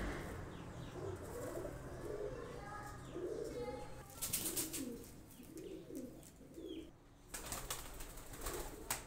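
Pigeons cooing in a series of low, rising-and-falling calls, with short bursts of feather rustling or wing flapping about four seconds in and again near the end.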